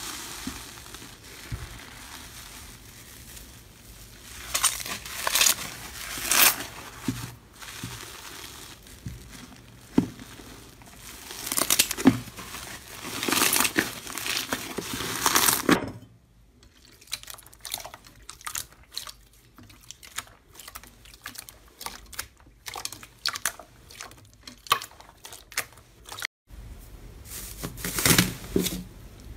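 Hands squishing and kneading an airy, bubble-filled slime, making crackling, popping and crinkling sounds in bursts, which thin out to sparse quiet clicks about halfway through. Near the end, gold foil layered on a fluffy slime crinkles as it is squeezed.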